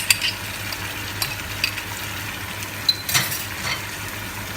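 Tomatoes and green chilies frying in oil with fried onions in a pan, sizzling steadily while being stirred, the utensil clicking against the pan a few times.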